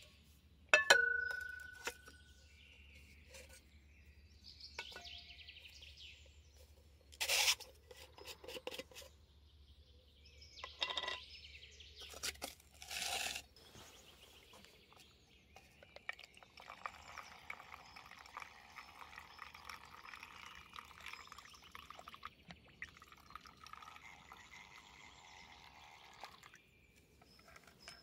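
Mini-Trangia cookware being handled: a sharp metal clink that rings briefly about a second in, then several more knocks and clatters. A fainter steady sound runs through the second half.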